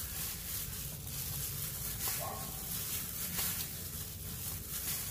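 Wet glass noodles dressed with soy sauce and sesame oil being tossed and squeezed by a plastic-gloved hand in a stainless steel bowl: soft, steady squelching and rustling.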